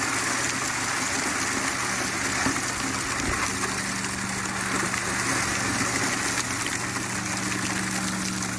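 Highbanker sluice box running: pumped water rushes steadily through the hopper and riffles over a constant low pump hum, which grows a little stronger about three and a half seconds in.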